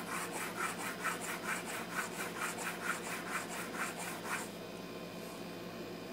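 Steel graver in a sharpening template being dragged quickly back and forth across a diamond sharpening stone, a fast even run of scraping strokes, about four a second, that are being counted to grind the graver's side facets evenly. The strokes stop about four and a half seconds in.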